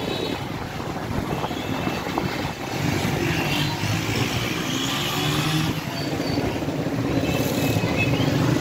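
Motorcycle and auto-rickshaw engines running in close street traffic, a steady mixed engine noise.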